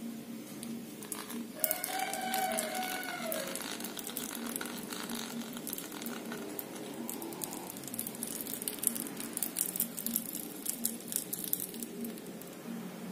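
A rooster crows once about two seconds in, its call dropping in pitch at the end. Light clicks and taps of small fishing-reel parts being handled run through the rest.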